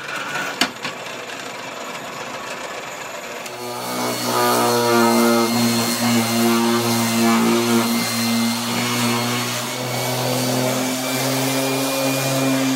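An electric power-tool motor starts about four seconds in and runs steadily at a constant pitch, over a duller steady noise that is there from the start.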